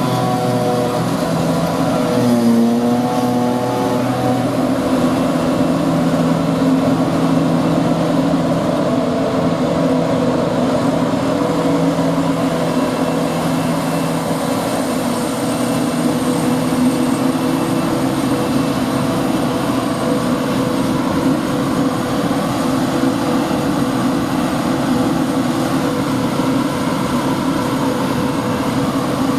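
Heavy diesel farm machinery running steadily while chopping grass silage. The engine note dips briefly about two seconds in.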